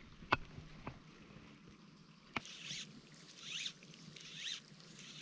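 Fly line being stripped in through the rod guides in short pulls: a faint zip about once a second from about halfway in, after a few light clicks.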